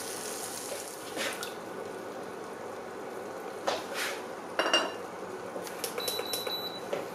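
Oil sizzling steadily in a frying pan of stir-fried noodles, with a few light knocks and taps against the pan as the food is pushed aside and two eggs are cracked in.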